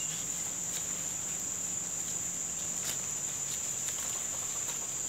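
Insects droning steadily at one high pitch, with a few faint rustles from cinnamon seedlings being pulled up by hand from the leaf litter.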